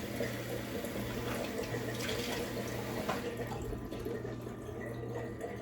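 Water running steadily, being added to a dry cornstarch slime mix; it thins out a little after about three and a half seconds.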